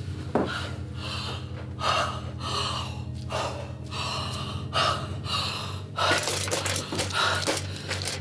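A woman gasping and panting in distress: a run of sharp, ragged breaths in and out, several a second apart, over a steady low drone. From about three quarters of the way in, rapid small clicks and clatter join the breaths.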